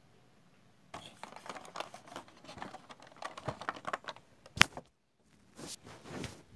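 Crinkling and rustling of a Funko Pop's cardboard box and clear plastic tray being handled, with one sharp snap about four and a half seconds in. After a brief silence come two soft swishes of packaging.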